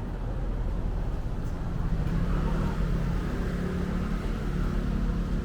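A motor vehicle's engine running close by in street traffic, with a steady low hum that grows louder about two seconds in as it draws near.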